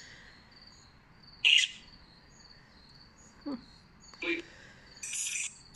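Crickets chirping faintly in short repeated trills, with a few brief sharp sounds over them, the loudest about a second and a half in.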